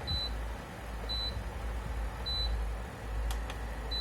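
Induction stove beeping a short high tone about once a second, the warning it gives when no pan is on the plate. A steady low hum runs underneath, and there are two faint clicks about three and a half seconds in.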